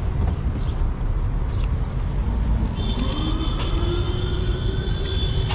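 City street traffic with a steady low rumble. About two and a half seconds in, a vehicle pulls away with a rising engine whine, and a high steady whine joins it and holds.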